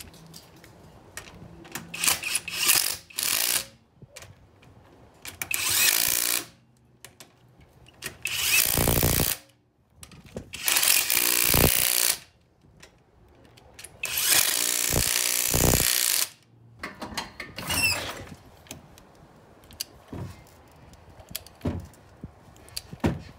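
Cordless drill running lug nuts onto a car wheel's studs in about six bursts of one to two seconds each, with short pauses between, then a few light clicks near the end.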